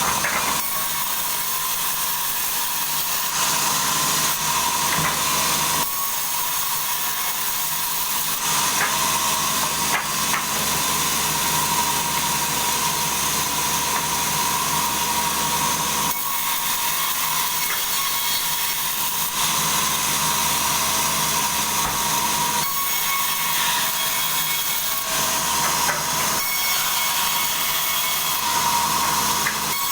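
Sawmill saw cutting through a log: a continuous hissing cutting noise over a steady high whine, with the lower machine hum shifting every few seconds.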